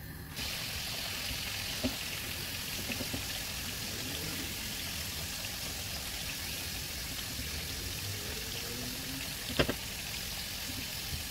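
Hot oil sizzling steadily as sliced potatoes fry in a pan, the hiss growing louder just after the start. Two sharp clinks cut through it, about two seconds in and, loudest, about nine and a half seconds in.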